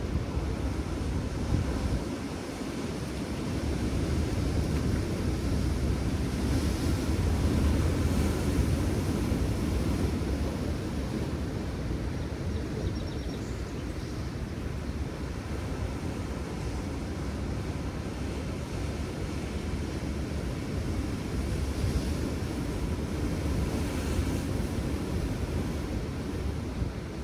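Steady low rumbling noise of wind and surf, growing a little louder a few seconds in, then easing.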